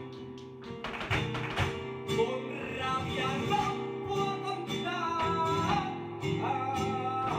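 Live flamenco music: guitar playing under a few sharp percussive strikes about a second in, then a singer's wavering voice coming in from about three seconds.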